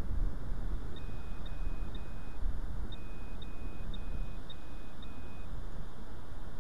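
Short, even electronic beeps from metal-detecting gear: three, then after a brief gap five more. They signal metal in the dug hole, over low rustling of digging in soil and leaves.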